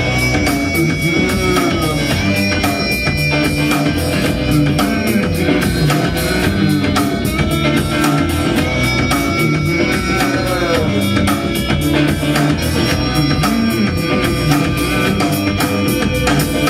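Instrumental passage of an alternative rock song between sung lines: a steady drum-kit beat over stand-up bass, with guitar.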